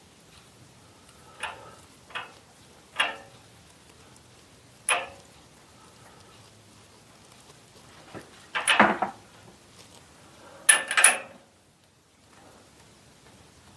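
A series of short knocks and clinks from hard objects being handled and set down: four single ones, then two louder rattling clusters near the end. No machine is running.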